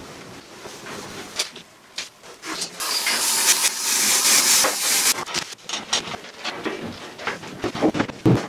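Aerosol spray can hissing steadily for about two seconds, starting about three seconds in, among short clicks and knocks of handling.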